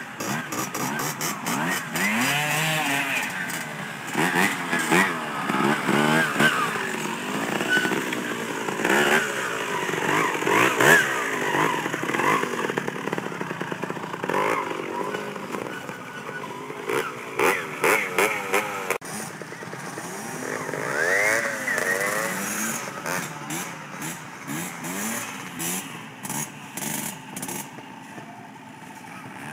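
Trials motorcycle engines blipped on and off as the bikes clamber over steep, rough ground, the pitch swooping up and down in short bursts of throttle.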